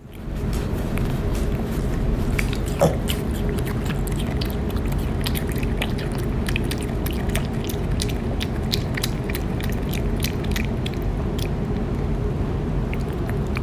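Piglet chewing and smacking on a small piece of food: many quick, wet clicks over a steady low rumble of background noise.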